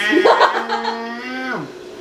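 A person's long drawn-out vocal call, held on one steady pitch for over a second and then dropping away at the end.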